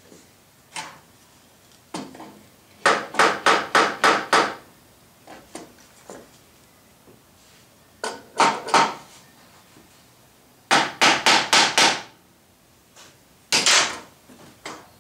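Hammer rapping on hard live-oak boards held in clamps: several quick runs of sharp taps, about four to six taps a second, with a couple of single taps before the first run.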